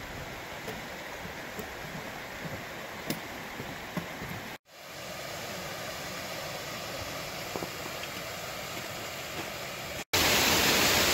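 Steady rush of a flowing stream, with a few faint knocks of boots on wooden footbridge planks in the first few seconds. The sound drops out briefly twice, about four and a half seconds in and near the end.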